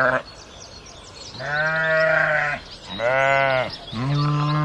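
A bleating farm animal, giving three drawn-out bleats, each about half a second to a second long, with short pauses between them.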